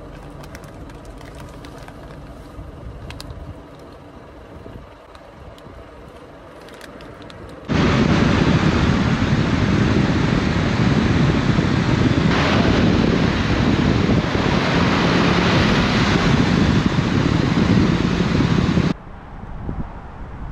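Honda CB500X motorcycle running on the move. About eight seconds in, a loud, even rush of wind over the microphone cuts in suddenly and drowns the engine, then cuts out just as suddenly a second or so before the end.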